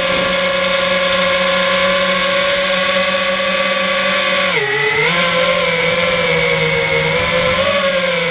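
FPV quadcopter's brushless motors and propellers whining steadily, heard up close from a camera mounted on the quad. A little after four seconds the pitch dips sharply with a quick throttle change and comes back, then wavers slightly.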